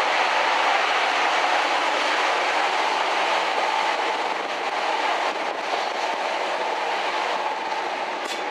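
Class 55 Deltic locomotive's twin Napier Deltic two-stroke engines working under power, heard from a carriage window behind it as a steady roar mixed with wind and the carriage's running noise. A single sharp click near the end.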